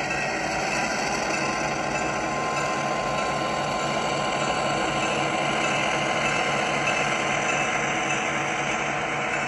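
HO scale model train running on the layout: a steady mechanical hum with a fine, rapid clatter, typical of a small locomotive motor, its gearing and wheels rolling over the track.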